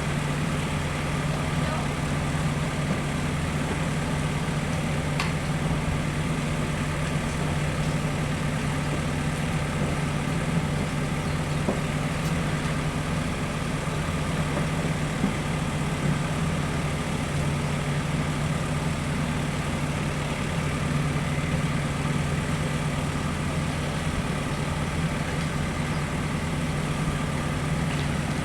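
Bus diesel engine idling steadily with a constant low hum, heard from inside the cabin behind the driver while the bus waits at a stop.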